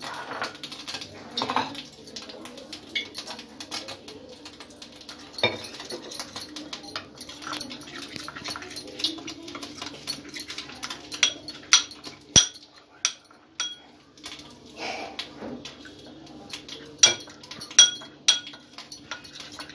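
Metal spoon stirring ground spices in a small glass bowl, with scraping and sharp clinks of the spoon against the glass, most of them in the second half.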